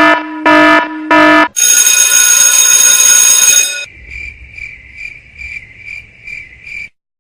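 Electronic sound-effect clips played back to back: a low buzzer beeping about three times, then a bright, harsh sustained tone for about two seconds, then a high beep pulsing about twice a second over a low hum for three seconds, cut off abruptly.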